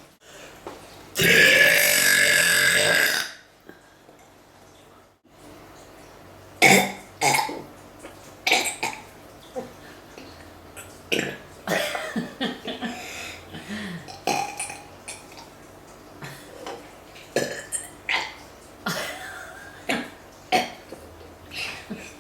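A person burping: one long, loud burp lasting about two seconds, then, after a short quiet gap, a string of shorter, quieter burps.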